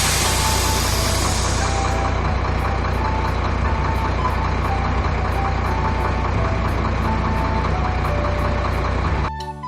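A heavy truck engine idling steadily with a low rumble, under light background music with short melody notes and an even ticking beat. The engine sound cuts off just before the end, leaving the music.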